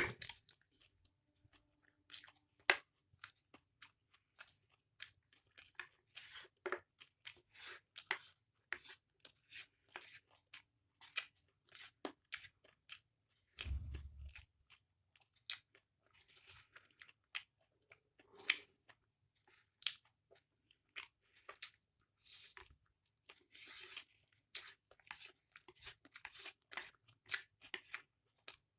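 Close-miked chewing of chow mein noodles: irregular wet mouth clicks, smacks and crunches, many to the second in spurts, with a single low thump about halfway through.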